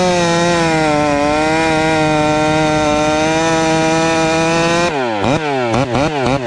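Two-stroke chainsaw with a long bar running at full throttle as it cuts into the base of a tree trunk, its pitch dipping slightly as the chain loads in the cut. About five seconds in it is revved up and down several times in quick succession.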